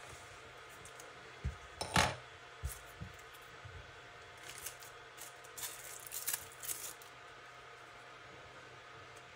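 Small clicks and taps of metal tweezers and small items handled on a tabletop, the loudest about two seconds in. From about the middle on, a few seconds of light crinkling as a plastic zip-lock bag is handled.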